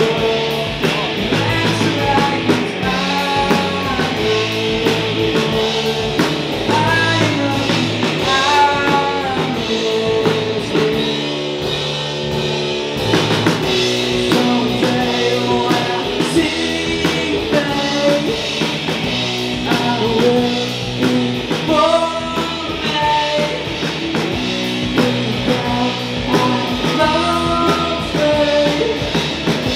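Live rock band playing: distorted electric guitars and a drum kit, with a lead vocalist singing over them.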